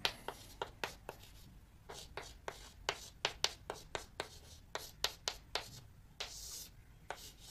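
Chalk writing on a blackboard: a quick string of short, sharp taps as each stroke lands, with a longer scratchy stroke a little after six seconds in.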